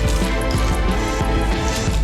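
Background music with a steady beat and sustained pitched tones.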